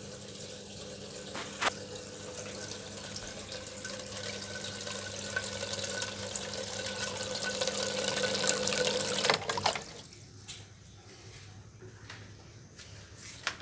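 Water gushing and splashing out of a submerged outlet into a large plastic bucket of tilapia fry, a steady hiss with a faint hum that grows louder and then cuts off suddenly about nine and a half seconds in.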